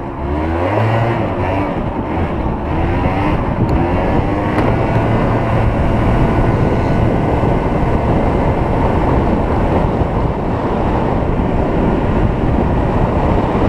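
Derestricted Yamaha BW's scooter engine accelerating, its pitch rising over the first four seconds or so, then running steadily at speed.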